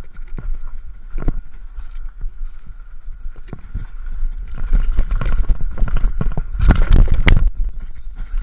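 Mountain bike rattling and rumbling down a rough, steep forest trail. Near the end, a quick cluster of three heavy thuds and clatter as the rider crashes on the slippery ground.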